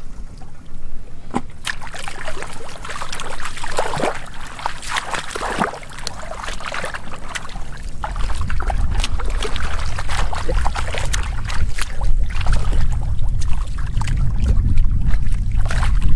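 Hands splashing and sloshing in shallow muddy water, groping through the mud for fish in irregular strokes, busiest in the first half. Under it runs a steady low rumble that grows louder in the second half.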